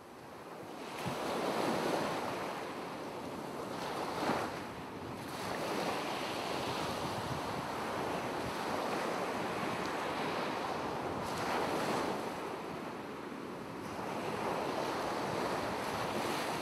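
Sea waves washing on a rocky shore, a steady rush that swells and eases every few seconds, fading in over the first couple of seconds.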